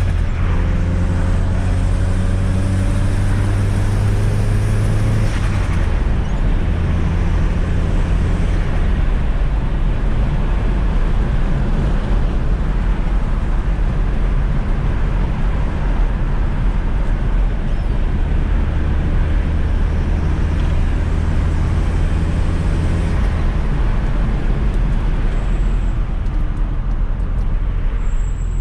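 1995 Fiat Coupe 2.0 16V Turbo's four-cylinder engine running under way, with steady road noise. The engine note steps down about five seconds in and shifts again later, with the engine speed changing as it drives.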